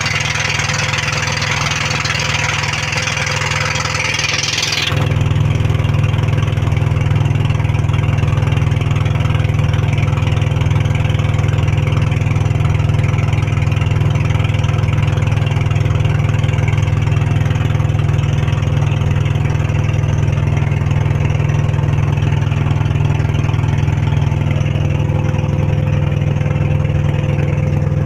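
Pumpboat engine running steadily with a constant low drone. About five seconds in, a high hiss stops and the engine gets louder.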